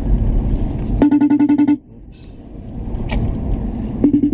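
Outgoing FaceTime call ringing on a phone: a short buzzy, rapidly pulsing tone, sounding twice about three seconds apart, over the car's steady road and engine noise.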